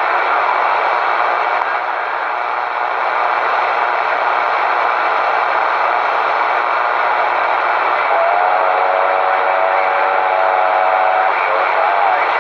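CB radio receiver hissing with static through its speaker, a steady rushing noise. About eight seconds in, a faint wavering tone rides on the static for about three seconds.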